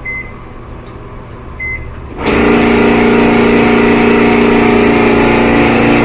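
Two short control-panel beeps, then about two seconds in the Frigidaire dryer's drive motor starts with a loud, steady noise. The belt has slipped off the motor pulley, so the motor spins free and the drum does not turn.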